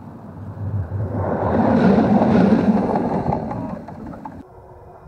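Tram passing close by the track-level camera, its wheels rumbling on the rails. The sound swells to a peak about two seconds in, fades as the tram moves away, and cuts off abruptly near the end.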